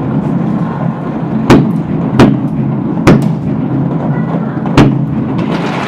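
Fireworks going off: four loud bangs at uneven intervals and a few fainter cracks over a steady background din.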